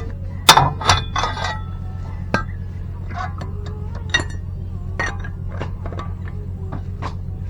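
Metal tools and brake parts clinking and knocking in a string of sharp, irregular hits, the loudest about half a second and a second in, over a steady low hum.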